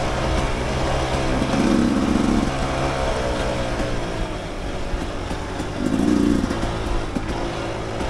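Dirt bike engine running under way on a trail, with the throttle opened in two short surges, about two seconds in and again about six seconds in.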